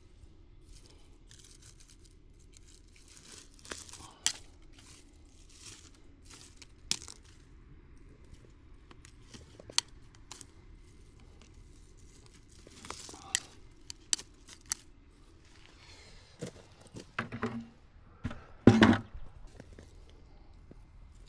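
Leafy weeds and brush being handled and pulled, with scattered rustling, crinkling and small snaps. A heavier thud and crunch near the end is the loudest sound.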